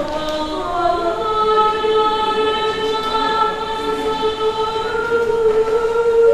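A woman singing a psalm solo: a short rising phrase, then one long held note of about five seconds.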